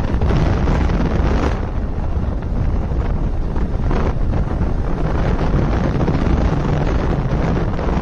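Wind buffeting the microphone of a moving motorcycle: a loud, steady rumble, with the bike's road and engine noise underneath.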